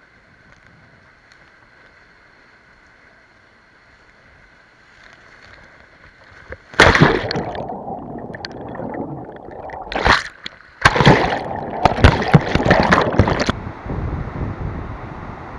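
Whitewater rapids heard from a camera mounted on a kayak's bow: a low, muffled rush at first, then from about seven seconds in, loud crashing and gurgling as waves break over the camera and dunk it under water, with a short lull about ten seconds in. Near the end it gives way to the steadier rush of the rapid heard from the bank, with wind on the microphone.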